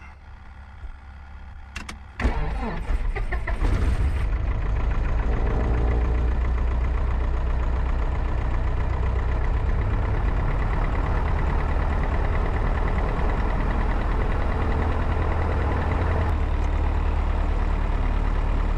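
A Piper Cherokee's piston engine, cold after a winter night, cranks and catches about two seconds in after a couple of clicks. It then settles into a steady idle, heard from inside the cabin.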